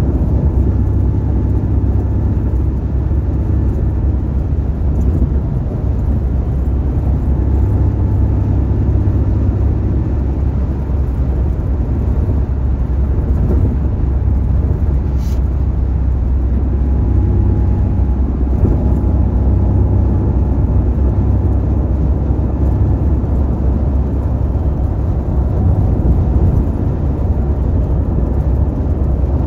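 A car driving: steady low road and engine noise.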